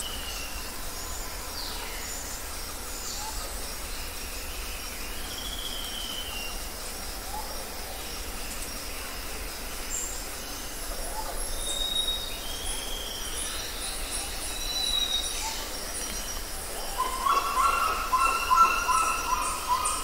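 Wild birds calling in bare woodland: scattered high whistles and thin chirps over a steady hiss, with a louder, repeated chattering call starting a few seconds before the end.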